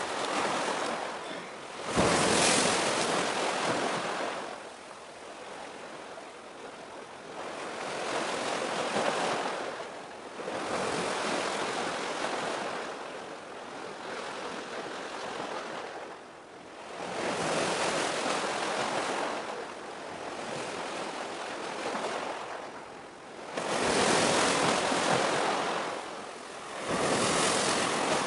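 Waves breaking and washing in, rising and falling in surges every few seconds. The loudest is a sudden crash about two seconds in.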